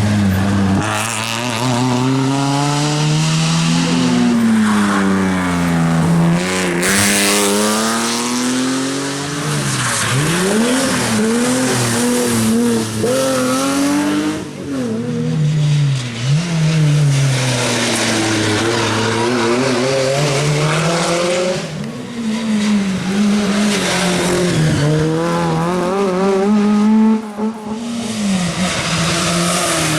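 Rally car engine worked hard through a stage section: revs climbing under full throttle, dropping at gear changes and lift-offs, then climbing again many times over. Tyres squeal and scrub as the car slides, with brief drops in engine sound about halfway and near the end.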